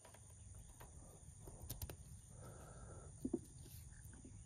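Faint handling of plastic MC4-type solar panel cable connectors as they are pushed together, with a few small clicks and a short sharp knock about three seconds in.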